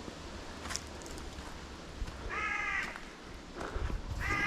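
A crow cawing twice, two harsh calls about two seconds apart, the second near the end.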